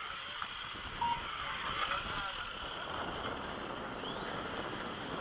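Radio-controlled cars running on an asphalt track: a steady whir of motors and tyres, with a faint rising whine about four seconds in. A short beep comes about a second in.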